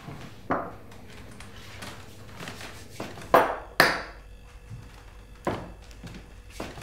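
A pepper mill and tableware being set down on a breakfast table: a handful of separate knocks and clinks, the loudest two close together about halfway through.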